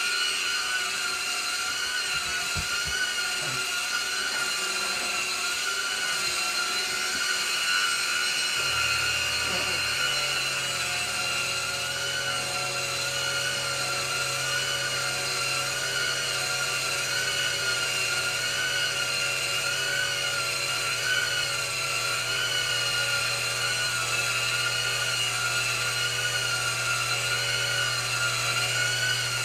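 Vacuum cleaner motor running steadily with a high whine that wavers slightly. A low hum joins in about nine seconds in.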